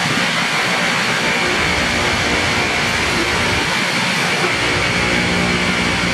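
Loram rail grinder's rotating grinding stones grinding the rail head as the machine rolls past: a loud, steady, high grinding noise with a low drone beneath it.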